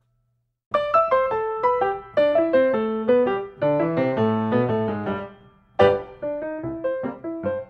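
Background piano music starting suddenly after a moment of silence, with a run of notes stepping down in pitch and a brief break about two thirds of the way through before it picks up again.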